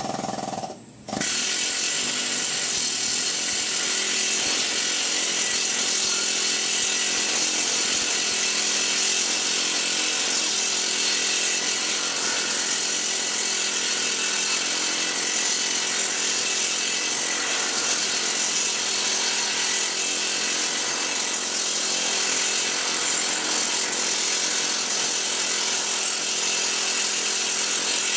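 Planishing hammer running at turned-down speed, rapidly hammering a curved steel sheet-metal pod between its dies. It starts about a second in and runs steadily. The lower die is held pressed down, which gives a smoother planished finish.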